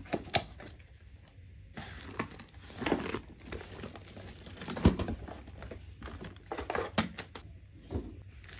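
Cardboard box and plastic wrapping of a diamond art kit being pulled open and handled: irregular crinkling and tearing with a few sharp knocks, the loudest about five seconds in.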